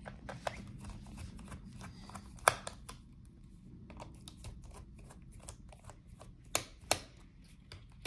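Small screwdriver clicking and tapping on the screws of a laptop's heatsink as they are undone: a few scattered sharp clicks, the loudest about two and a half seconds in and two close together near the end, over a faint low hum.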